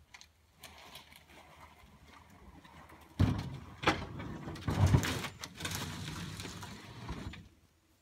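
A refrigerator being slid off a truck bed down a ramp: scraping and rumbling, with heavy knocks a little past three seconds in and again around five seconds, the scraping stopping shortly before the end.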